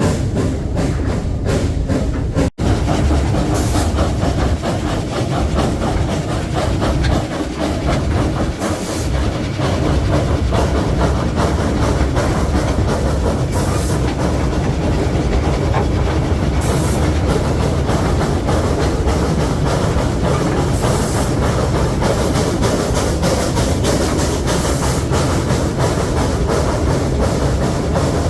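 Narrow gauge train running along the track: a steady rumble with quick clicking of wheels over the rails, broken by a momentary gap about two and a half seconds in.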